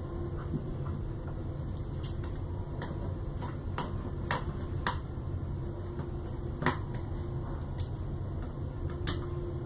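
Irregular light clicks and taps of a screwdriver and small screws on the printer frame as the motor-mount screws are fastened, about eight in all, the loudest about two-thirds through. A steady low rumble runs underneath.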